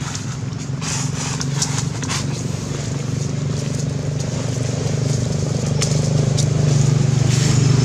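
A motor engine running steadily, its hum getting louder toward the end. Dry leaves crackle and rustle in short spells as baby monkeys scuffle in them.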